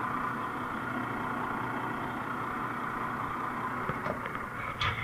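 An engine running steadily, with a few short knocks near the end.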